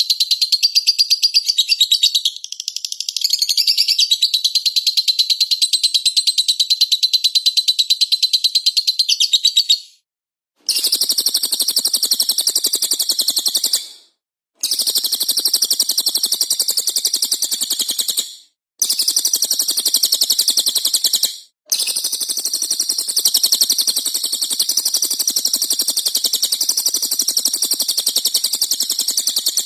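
Recorded cage-bird song used as a masteran track: a fast, unbroken high-pitched chattering and twittering, continuous for about ten seconds, then carrying on in stretches separated by brief silent gaps.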